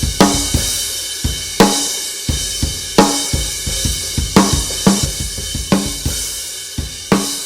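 A drum kit playing a steady groove built around a homemade 14-inch snare drum: a maple shell wrapped in layered aluminium sheet, with a coated top head and steel snare wires. The loudest hits come about every second and a half, with bass drum and cymbals in between.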